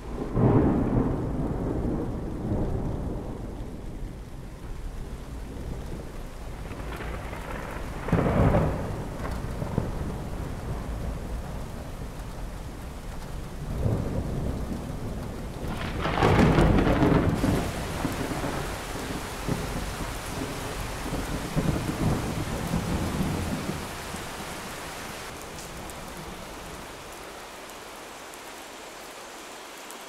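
Thunderstorm: three long, low rolls of thunder, about a second in, around eight seconds and the loudest around sixteen seconds, over steady rain. The rain turns to a brighter hiss from about seventeen seconds and slowly fades near the end.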